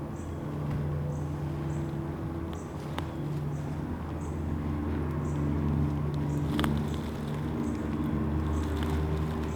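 Road traffic: a low, steady engine hum that swells and fades, with faint high chirps repeating about every half second and a couple of light clicks.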